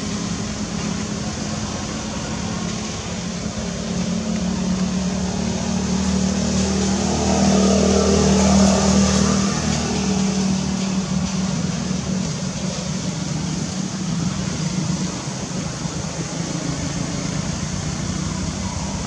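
Steady engine hum with a constant high hiss behind it, swelling louder about halfway through and easing off again.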